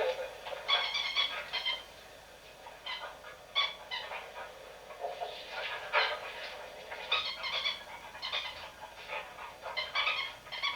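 An animal calling in short, high-pitched bursts, repeated about every second.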